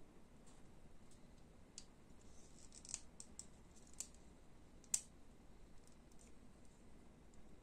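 Faint clicks and ticks of small plastic model-kit parts being handled and pressed together in the fingers. A few sharp clicks come between about three and five seconds in, the loudest near five seconds.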